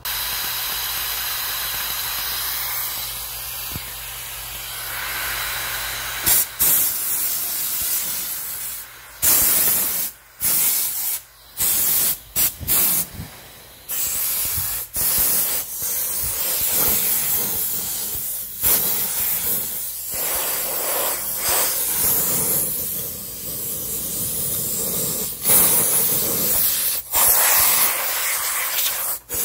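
Handheld steam cleaner blowing steam with a steady hiss. The hiss cuts off and starts again many times as the trigger is released and pressed.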